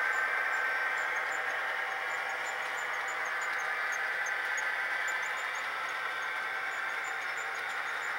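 HO-scale Intermountain CN SD40-2W model locomotive's sound decoder playing a running EMD diesel engine through its small onboard speaker, with almost no bass, mixed with the freight cars rolling over the track. It eases off slightly after the first second or two.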